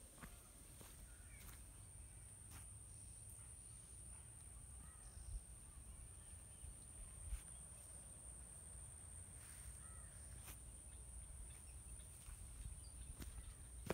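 Near silence: faint outdoor ambience with a low rumble, a steady high-pitched whine, a few faint bird calls and occasional soft clicks.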